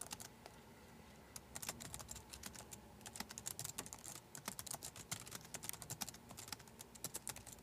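Faint typing on a computer keyboard: a quick, uneven run of key clicks, several a second, growing busier about a second in.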